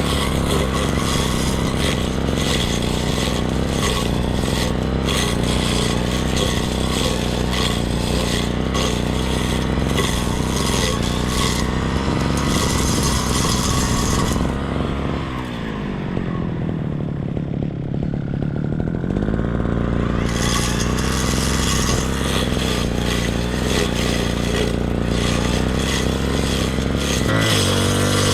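Petrol brush cutter (grass cutter) running at high revs, its cutting head scraping and clattering through grass. About halfway through the engine drops back to idle for a few seconds, then revs up again.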